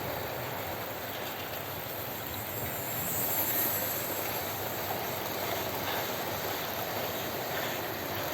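Electric model trains running on the layout's track, a steady running noise of small motors and wheels on rail that grows slightly louder about three seconds in.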